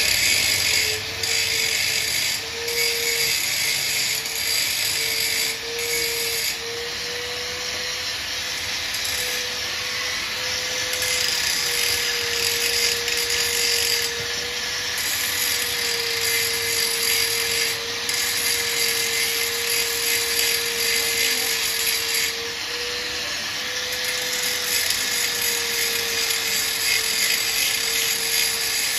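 Handheld angle grinder running against a steel motorcycle exhaust pipe: a steady motor whine over a harsh grinding hiss. The whine dips slightly in pitch now and then as the disc is pressed into the metal.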